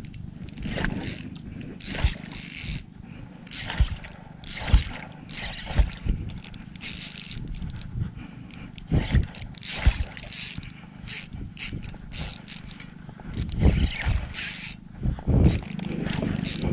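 OXGN Musky fishing reel working under load, its mechanism clicking and whirring in irregular bursts as line is fought against a hooked fish.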